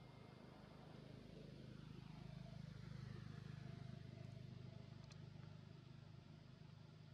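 Faint low engine hum that swells around the middle and fades again, with a single faint tick about five seconds in.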